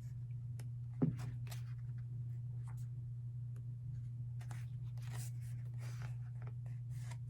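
Pages of a K-pop album's photobook being turned and handled: soft paper rustles and slides with small ticks, and one sharper knock about a second in, over a steady low hum.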